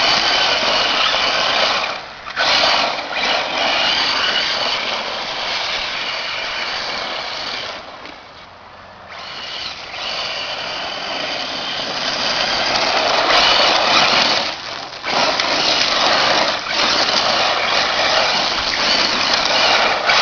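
1/8-scale RC rail buggy with a brushless electric motor and Mamba Monster speed controller driving hard over loose ground: a high motor whine over tires throwing dirt and rocks. It eases off for a moment several times and drops lowest for about a second near the middle.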